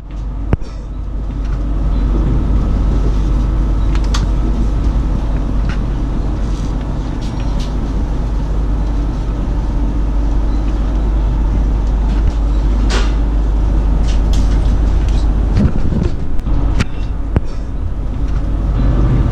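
Passenger train running, heard from inside the carriage: a steady low rumble with occasional knocks and rattles.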